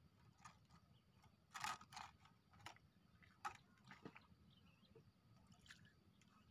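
Near silence, with a few faint, irregular clicks and taps, a small cluster of them about a second and a half in.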